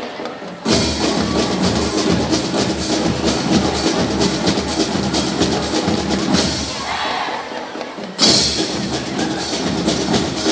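Fanfare marching band playing, with drums and percussion to the fore. The music drops out briefly twice, near the start and about eight seconds in, and comes back each time on a loud hit.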